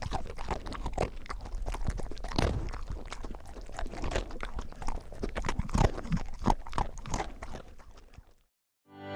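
A dog eating dry food: irregular crunching and chewing of kibble with clicks of the teeth, stopping about eight seconds in.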